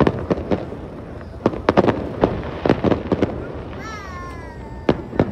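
Aerial fireworks going off in clusters of sharp bangs in quick succession, easing off for about a second before more bangs near the end. A brief high tone falls in pitch about four seconds in.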